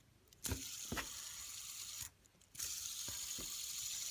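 Fidget spinner's ball bearings whirring with a steady, hissy high whir after being flicked, with a couple of light clicks as it is set going. The whir stops abruptly about two seconds in, then starts again about half a second later and keeps spinning.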